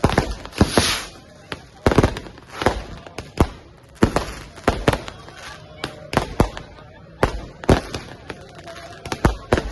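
Fireworks going off in quick, irregular succession, sharp bangs two or three a second, with a hissing crackle about a second in.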